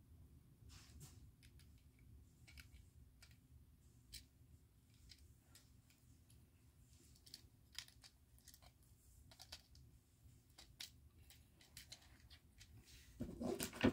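Plastic LEGO bricks clicking as they are handled and pressed together, a scatter of small sharp clicks, with a louder burst of clicking and rustling near the end.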